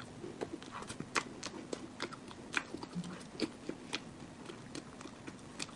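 Close-miked chewing of cream cake: a string of soft mouth clicks and smacks, a few a second at an irregular pace.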